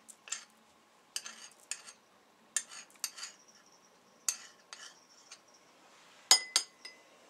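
Metal measuring spoons scraping and clinking against each other as flour is scooped and levelled off, in short separate strokes. The sharpest clink comes near the end and rings briefly.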